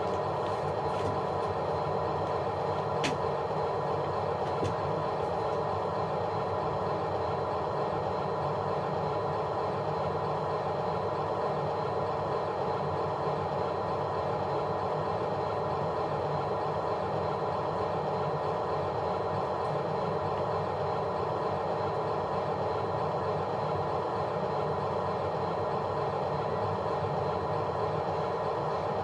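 A steady motor drone holding one even pitch throughout, with a single sharp click about three seconds in.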